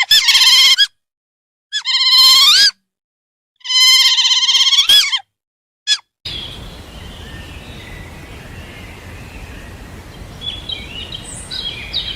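An animal calls three times, each call about a second long, loud, high and wavering, ending in a rising hook. About six seconds in, this gives way to a steady outdoor background with faint chirps near the end.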